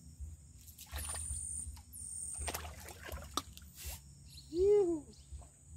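A small hooked piau splashing at the water's surface as it is pulled in on a bamboo pole: several short splashes. A single loud call rising and falling in pitch comes about three-quarters of the way in, with a couple of brief high chirps earlier on.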